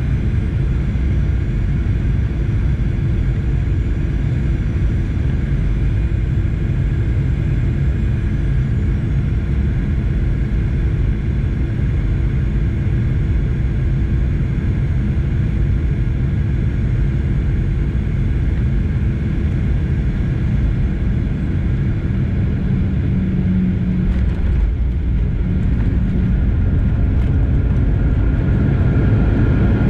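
Airliner cabin noise: a steady low rumble of engines and airflow with a few steady engine tones. About 25 s in the high hiss thins out, and near the end the sound grows slightly louder as a higher whine comes in.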